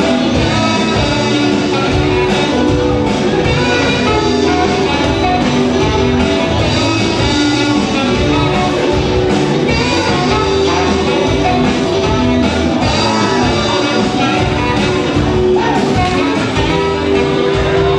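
Live rock band playing loudly and without a break: electric guitar, bass and drums, with a saxophone carrying the tune.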